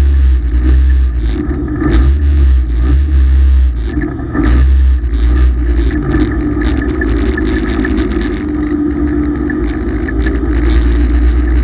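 Race car engine pulling hard on a qualifying hot lap, heard from inside the cockpit. Its loudness dips briefly a couple of times early on and rises again near the end.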